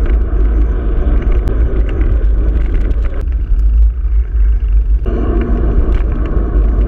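Wind buffeting a mountain bike's handlebar-mounted camera microphone while riding on a paved road, a steady low rumble with road noise. It eases a little past three seconds in and comes back at full strength about five seconds in.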